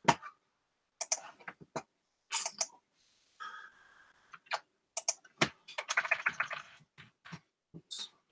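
Computer keyboard keystrokes and mouse clicks, short and irregular, with a quicker run of taps a little after halfway.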